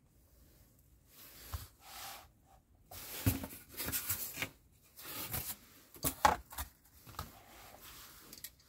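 Handling noise as a sheet of cardboard is laid on a glass-topped digital kitchen scale: rustling and scraping in several short bursts, with a few light knocks.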